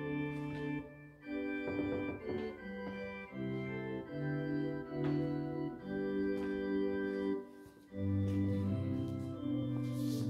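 Organ music playing slow, held chords that change every second or so, with brief breaks about a second in and near eight seconds.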